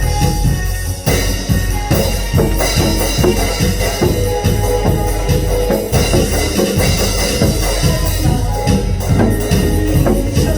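Instrumental trot-style backing music with a steady drum-kit beat and held keyboard notes, without singing.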